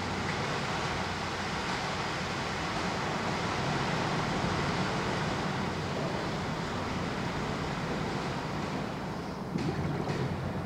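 Steady rushing water noise with a low hum underneath, and a few faint clicks near the end.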